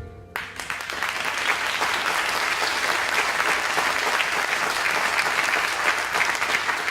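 Audience applauding, breaking out sharply about a third of a second in and holding steady.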